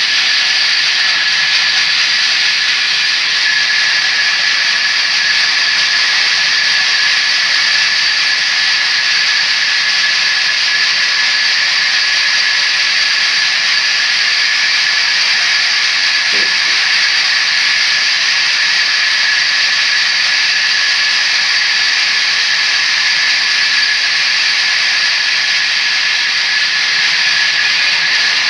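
Vertical log band saw running and ripping lengthwise through a timber log: a loud, steady, high hiss with a thin whine in it, unchanging throughout.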